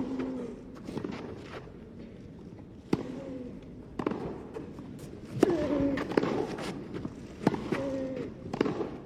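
Tennis rally: rackets strike the ball with sharp pops about every one to two seconds, with short vocal grunts from the players around the shots.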